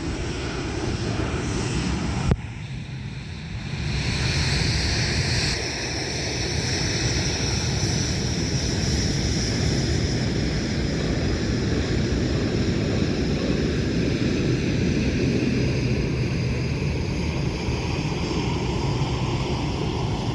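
Jet airliner engines, a steady loud rush with a high whine that swells up about four seconds in and holds, after a sharp click about two seconds in.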